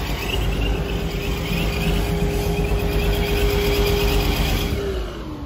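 Supercharged C7 Corvette V8 running with the hood open, with a steady whine over rushing air; near the end the whine starts to fall in pitch.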